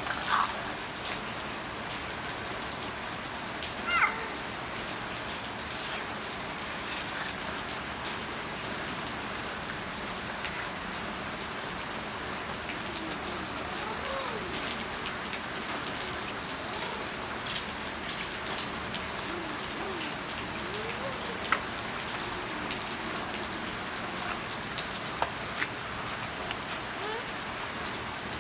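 Steady rain falling and pattering on surfaces, an even hiss throughout. Two short high-pitched sounds stand out near the start and about four seconds in, and a few sharp taps come later.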